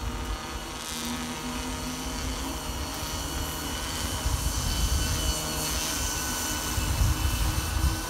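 Wind buffeting the phone's microphone on a bicycle coasting fast downhill: a rough low rumble that grows louder and gustier in the second half as speed builds.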